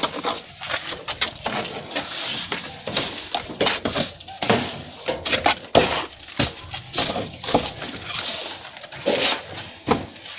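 Steel plastering trowels working wet cement mortar against a concrete beam: irregular scrapes, dabs and taps as the mortar is pressed and smoothed on.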